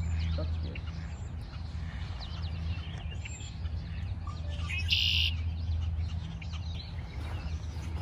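Wild birds chirping and calling here and there over a low, steady rumble, with a brief hiss about five seconds in.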